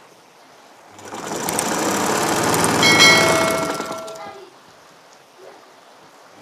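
Black Singer-pattern Butterfly sewing machine, driven by an add-on electric motor, stitching through a thick quilted bedcover. It makes one run of about three seconds that speeds up, whines at its fastest, and slows to a stop.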